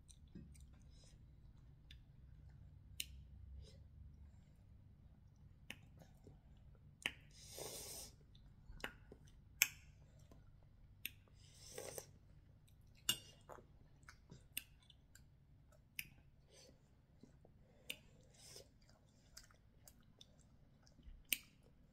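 Quiet eating sounds: a person chewing with lip smacks, and scattered sharp clicks throughout. A couple of brief breathy hisses come about a third and halfway through.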